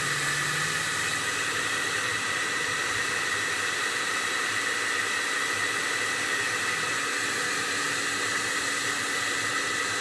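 Hand-held hair dryer running steadily, blowing hot air: a constant rushing hiss with a faint steady whine over it.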